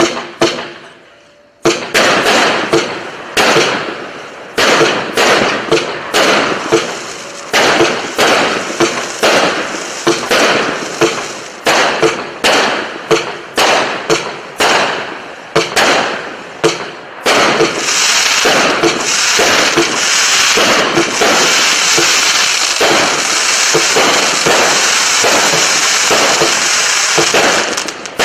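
Display firework cakes firing: a rapid run of sharp bangs, about two or three a second, that turns just past the middle into a dense continuous crackle, which stops abruptly near the end.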